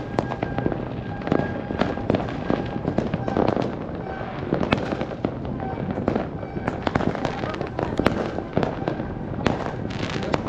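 Many fireworks going off at once across the surrounding area: a dense, irregular stream of bangs and crackles with no break.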